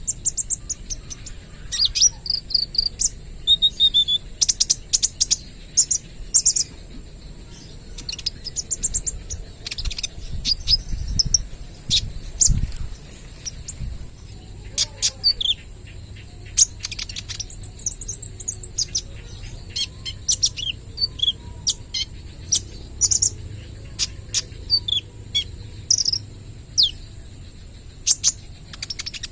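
Kolibri ninja sunbird singing: rapid runs of sharp, high chirps and quick down-slurred notes, the rattling "tembakan" style of song. A steady high-pitched tone runs underneath.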